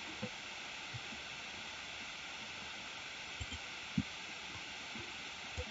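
Steady microphone hiss with a few faint, short low knocks, the loudest about four seconds in.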